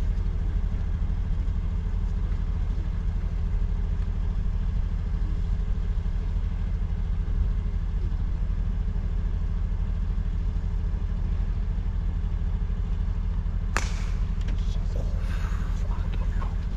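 A steady low engine hum runs throughout. About three-quarters of the way through there is one sharp click, followed by some light clatter.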